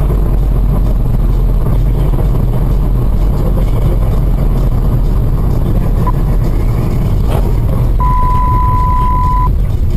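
Car cabin road and engine noise, recorded by a dashcam while driving: a steady low rumble. About seven seconds in there is a short knock as two cars collide ahead. It is followed by a steady high beep about a second and a half long.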